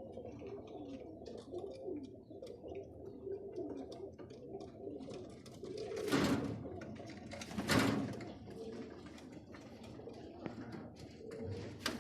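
Roller pigeons cooing in a loft, many low, warbling coos overlapping. Two short, louder rustling bursts come about six and eight seconds in.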